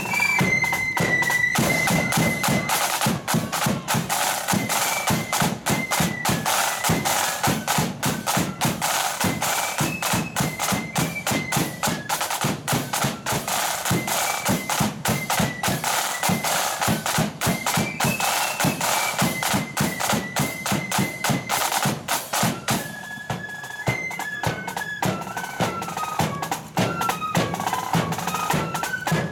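Marching flute band playing: a fast, busy snare-drum beat under a shrill, high flute melody.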